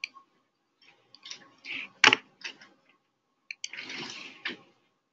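Desk handling noise with computer mouse clicks: a few sharp clicks and short rustling noises, with one louder knock about two seconds in.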